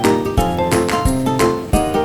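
Background music with a steady beat, about three beats a second, under a pitched melody.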